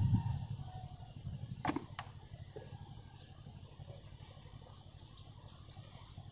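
Quiet outdoor ambience with short, high-pitched chirps of small wild creatures: a few near the start and a quick run of about five about five seconds in. Two soft knocks come a little before two seconds in.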